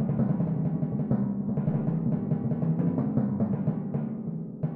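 Dramatic film score: fast, continuous low drumming over held low tones.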